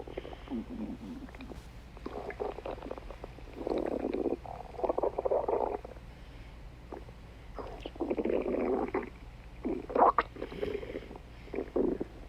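A stomach growling: a string of irregular rumbles, each lasting up to a second or so, with short gaps between them.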